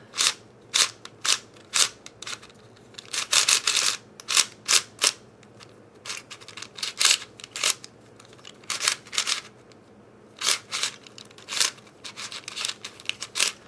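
Plastic clacking of a Cube4You 3x3x4 puzzle cube being turned by hand: irregular sharp clicks, single and in quick runs of several, as the layers snap round.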